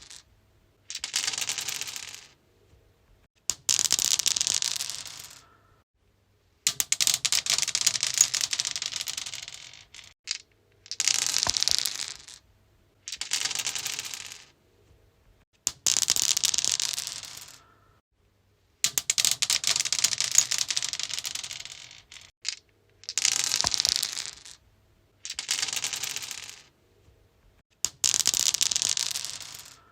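Dice rolled onto a stone surface, rattling and tumbling to a stop, over and over: about ten separate rolls, each a quick run of clicks and clatter lasting one to three seconds, with brief silences between them.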